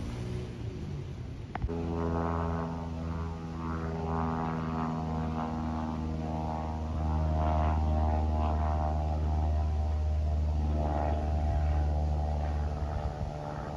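Propeller airplane flying overhead: a steady droning hum with a clear pitch. It starts abruptly just after a click about a second and a half in.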